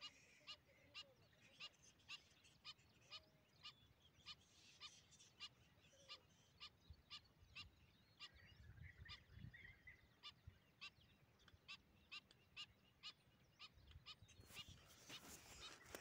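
A bird calling faintly, one short note repeated evenly just under twice a second. In the last couple of seconds, rustling from the phone being handled as it tips toward the ground.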